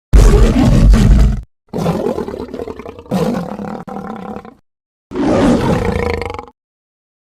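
Tiger roar sound effects played one after another with silent gaps: a loud, short roar first, then a longer, quieter roar, then a third roar about five seconds in.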